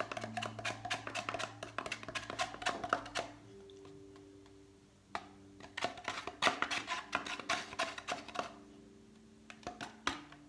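Small lidded plastic cup of paint and glue solution being shaken by hand: quick rattling and knocking in two bouts with a short pause between them, mixing the slime colour.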